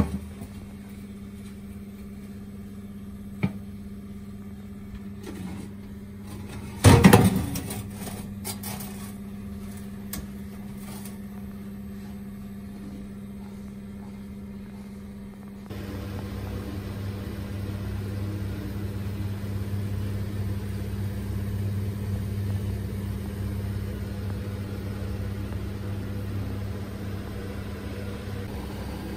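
Gas oven running with a steady low hum. About seven seconds in comes a loud clatter and a few smaller knocks, and from about sixteen seconds the oven's running noise becomes louder and steadier, a rush with a deeper hum.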